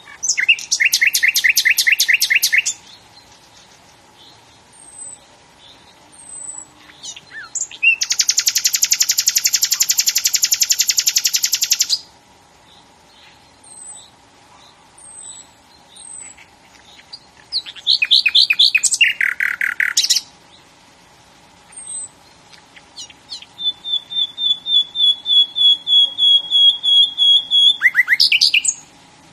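Songbirds singing: four loud song phrases a few seconds apart, with thin, high, short calls in between. One phrase is a fast trill lasting about four seconds, and the last is a run of about five quick repeated notes a second.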